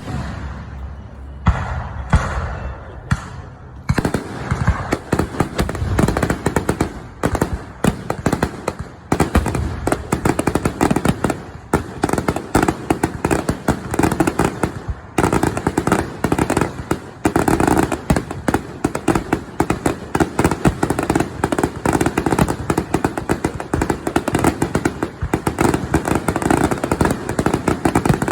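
Aerial fireworks display: a few separate booms, then from about four seconds in a dense, rapid barrage of bangs and crackling that goes on without a pause.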